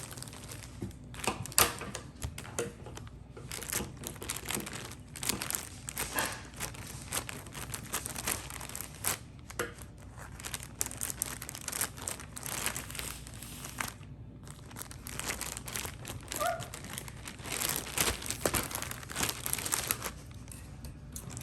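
Packaging crinkling and being torn open by hand, in many irregular short crackles and rustles.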